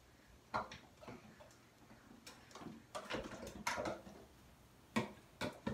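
Half a dozen sharp, irregular knocks and clatters of small objects being knocked about in a small tiled room: a child knocking things down.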